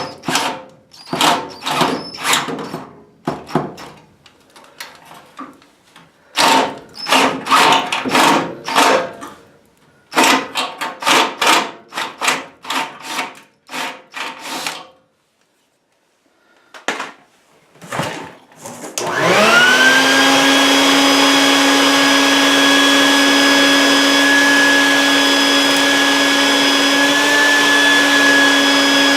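Short, irregular rasping bursts of tool work on sheet metal. About nineteen seconds in, an electric motor spins up quickly and then runs steadily with a whine.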